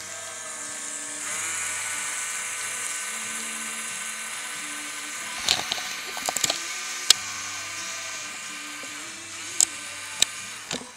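Small electric motors of an RC paddle-wheel boat (two Lego-style L motors) whining as they drive the paddle wheels. The whine rises in pitch about a second in, holds steady, and falls away near the end, with several sharp clicks in the middle and two more near the end.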